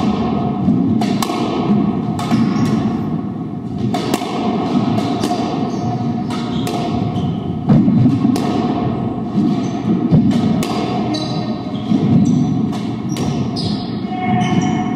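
Doubles squash rally: the ball is struck by rackets and hits the court walls, a sharp knock roughly every second, each ringing briefly in the court, with short high squeaks in between.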